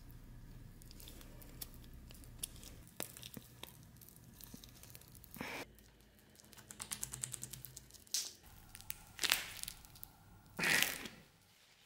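Gloved hands fitting a stacked handle onto a knife tang clamped in a vise: small clicks and rubbing, a quick run of ticks, then two louder short scraping rasps near the end as the handle is forced down with both hands.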